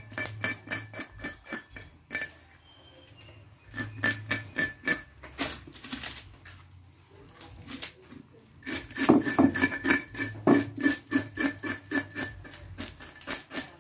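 Knife scraping the scales off a fresh tilapia on a wooden cutting board: quick repeated strokes in bursts, with short pauses between runs, the heaviest run about two thirds of the way through.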